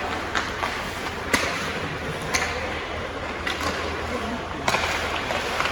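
Ice hockey play in a rink: skates scraping the ice and a steady rink hiss, broken by several sharp clacks of sticks and puck.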